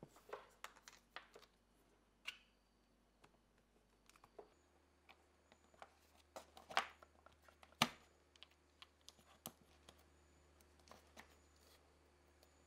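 Irregular light clicks and taps of small hard parts being handled, with two sharper knocks about seven and eight seconds in.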